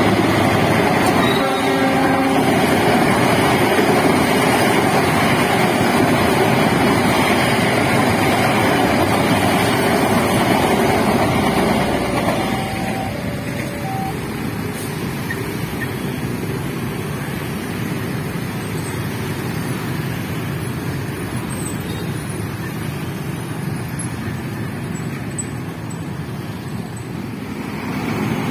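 Argo Bromo Anggrek express passenger train's carriages running past a level crossing at speed: a loud steady rush of wheels on the rails that ends about twelve seconds in. Lighter road traffic noise is left after it.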